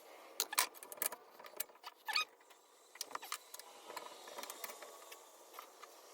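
Scattered light clicks and taps of small parts being handled and fitted, as a bushing is worked into an ATV's lower A-arm. There are several sharp clicks and a short scrape in the first couple of seconds, then fewer, fainter ticks.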